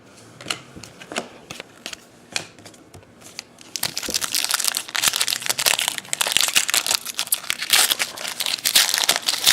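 A few separate light clicks, then from about four seconds in the loud, continuous crinkling and tearing of a hockey card pack wrapper being torn open and crumpled.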